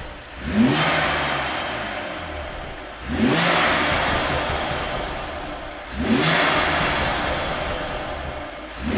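Car engine revved in four sharp blips about three seconds apart, each rising quickly and then fading away slowly.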